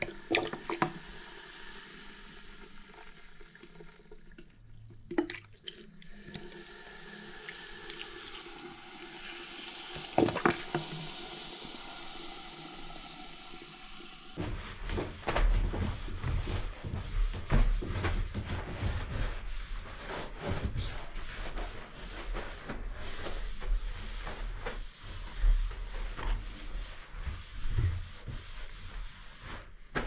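Vinegar poured from a plastic bottle into a bathtub drain packed with baking soda, with a few clicks and a soft hiss. About halfway through, this gives way to a sponge scrubbing a wet bathtub: irregular rubbing strokes with low knocks.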